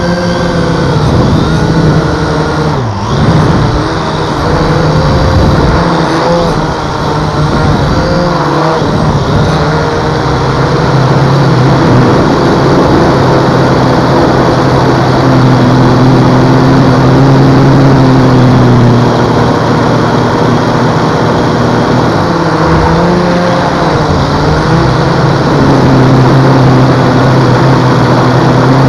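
Holy Stone HS300 toy drone's motors and propellers buzzing loudly close to its onboard camera. The pitch wavers and steps up and down as the drone manoeuvres.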